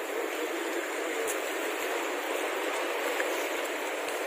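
Steady rush of flowing creek water, an even hiss with no change in level.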